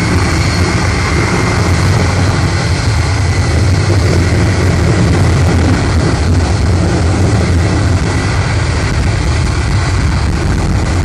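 Jet engine of a jet-powered show vehicle running with its afterburner lit, a loud, steady, continuous rush with a strong deep rumble.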